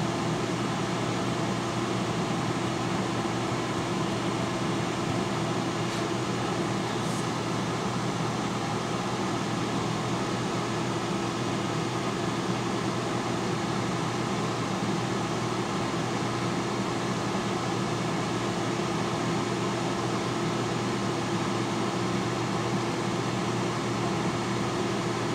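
T-fal air fryer running mid-cook: its fan makes a steady whir with a constant low hum.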